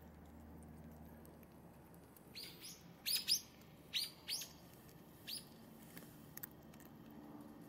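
A bird calling: a quick run of about seven short, high chirps, each dropping a little in pitch, lasting about three seconds and starting a couple of seconds in.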